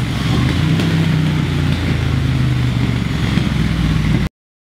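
Triumph Thruxton 1200's parallel-twin engine running under load on a dyno through a Scorpion de-cat header, its note held fairly steady, cutting off suddenly just over four seconds in.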